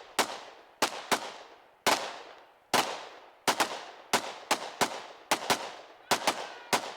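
Semi-automatic gunfire at a shooting range: about fifteen shots in seven seconds at an uneven pace, each with a short echoing tail.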